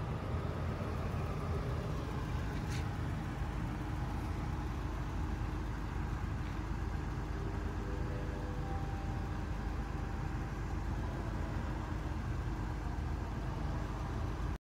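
Steady low engine rumble of vehicles idling, with a brief faint high chirp about three seconds in.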